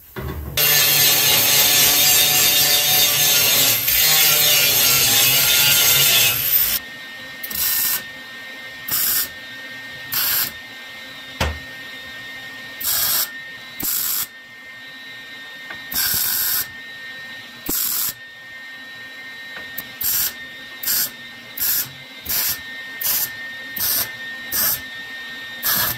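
An angle grinder runs for about six seconds with a steady high whine. Then a MIG welder tack-welds a rust-repair patch panel into a wheel well: about fifteen short welding bursts, each under a second, coming closer together near the end, with a faint steady hum between them.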